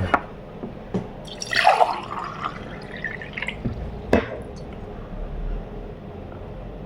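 Water sloshing and trickling in a drinking glass about a second and a half in, then a single sharp clink about four seconds in.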